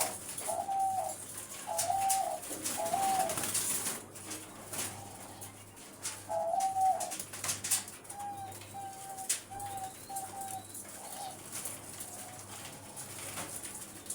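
Pied doves cooing: four short, level coos about two-thirds of a second apart, a pause, then another coo and a run of shorter, fainter coos.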